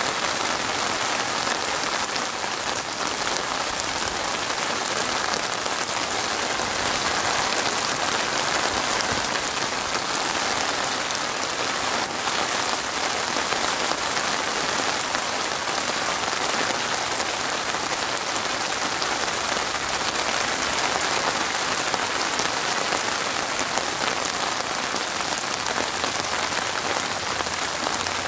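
Steady rain falling on open water, a dense, even patter of drops hitting the surface.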